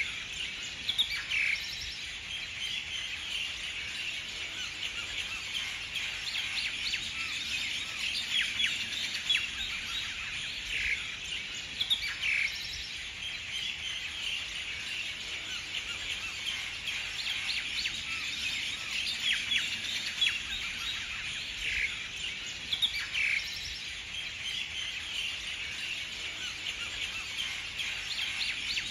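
Many small birds chirping and twittering continuously in high, quick notes, with a few louder calls standing out now and then.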